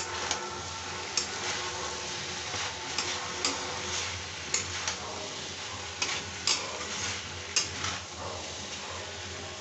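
Okra, onion and tomato sizzling in a kadhai while a metal spatula stirs them, scraping and clinking against the pan about once a second at uneven intervals.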